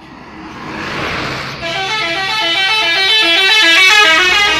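A bus drawing nearer with a rising rush of noise, then, a little under two seconds in, its telolet horn, a set of tuned air horns, playing a fast, stepping multi-note melody that grows louder.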